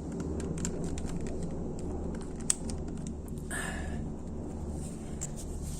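Small clicks and taps of multimeter probes and plastic vacuum parts being handled, with one sharp click about two and a half seconds in and a brief rustle a second later, over a steady low hum.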